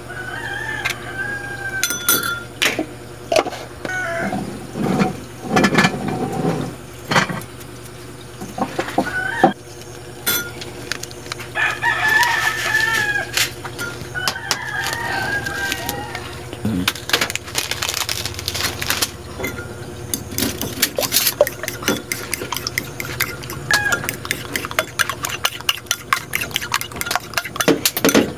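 A rooster crows and chickens cluck in the background while eggs are cracked and tapped into a ceramic bowl. In the last third, a fork beats the eggs against the bowl in rapid, steady clinking.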